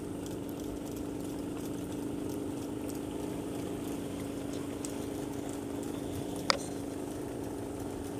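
Steady low motor-like hum, with faint scattered ticks and one sharp click about six and a half seconds in.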